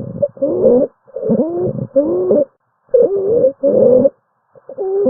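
Lung sounds through a stethoscope: breaths in paired in-and-out segments, about one every one and a half seconds, each carrying low, gliding musical tones. These are wheezes, a sign of narrowed airways.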